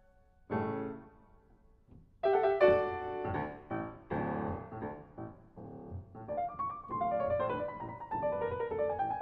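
Solo piano music from the video's score: a chord about half a second in, a short pause, then notes resume about two seconds in, with a falling run of notes near the end.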